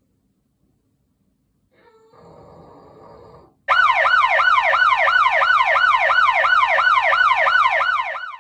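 English bulldog puppy snoring once, faintly, about two seconds in. Then a much louder siren-like sound of rapidly repeating falling whoops, about three a second, starts suddenly and runs until it cuts off near the end.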